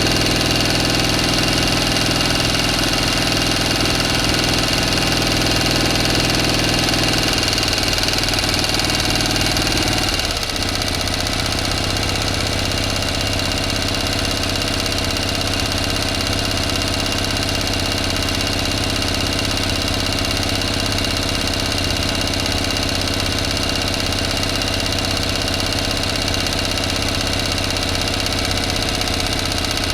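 A motor running steadily, with a steady high whine over it; its low drone changes and its level drops slightly about ten seconds in.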